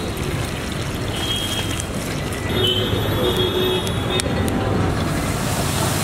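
Steady street traffic noise, with a few short high tones about halfway through.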